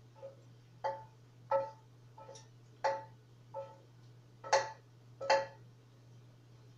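A metal utensil clinking against a cooking pot, about eight ringing clinks roughly two-thirds of a second apart, the loudest two near the end.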